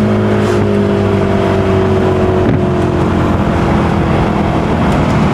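Maserati Quattroporte's engine running while the car is under way, its note falling slowly and steadily as the revs drop, over road noise.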